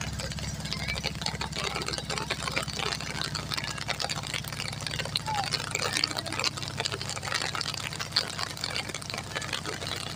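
Rain falling in sunshine, heard as many small sharp drop ticks, over a steady low engine hum.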